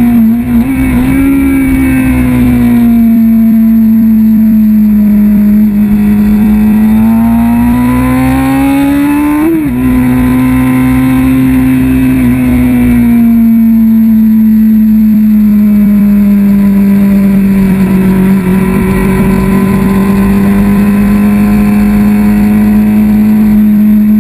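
Kawasaki ZX-6R 636 inline-four engine running at high revs at racing speed, heard from a camera mounted on the bike. Its pitch sags slowly and then climbs, drops suddenly at one quick gear change about ten seconds in, and then holds fairly steady.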